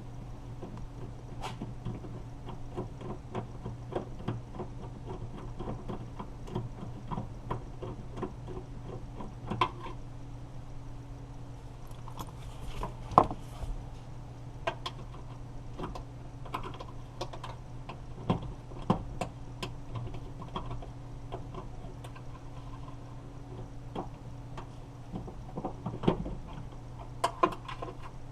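Scattered small clicks and taps of hand work on a car door's outside handle and lock parts, with one sharper knock about 13 seconds in, over a steady low hum.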